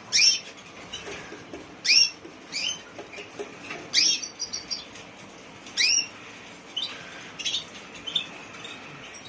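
Yellow agate topaz canary giving short, sharp chirps that fall in pitch, repeated at uneven gaps of a second or two.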